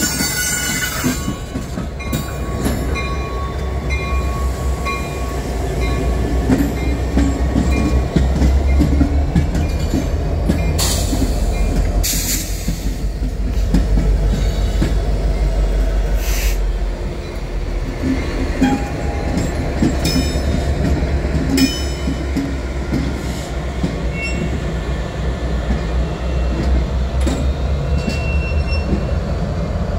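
Union Pacific SD70M diesel-electric locomotive passing at low speed, its diesel engine running with a steady deep rumble. Steel wheels click and knock over the rail joints, with short bursts of wheel squeal.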